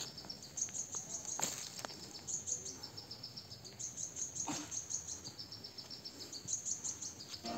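Insects chirring in rapid pulsed trains, high-pitched, one trill after another at two slightly different pitches, with a few soft clicks in between.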